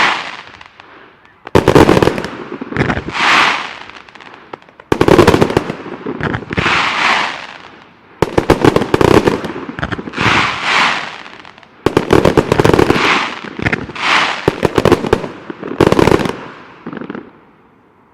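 A consumer fireworks item firing in about five volleys, one every three to four seconds. Each volley is a cluster of sharp pops and crackles with a swelling hiss, and the item dies away in the last second.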